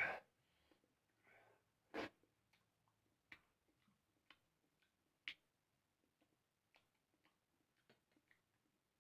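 Quiet eating sounds: a handful of short, soft clicks and smacks from chewing and from fingers working rice and fish curry in a bowl, the strongest near the start and about two seconds in, with near silence between.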